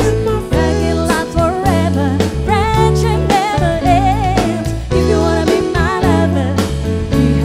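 Pop/soul band song: a woman singing lead, her long notes wavering, over drum kit, electric bass and keyboard, with a steady beat.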